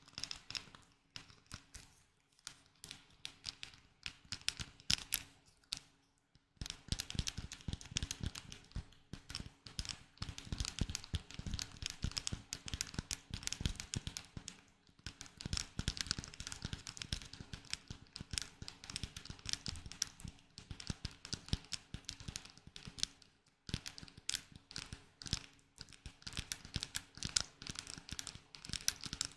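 Close-up ASMR trigger sounds: quick, irregular tapping and clicking on a small object, with short pauses about six seconds in and near the end.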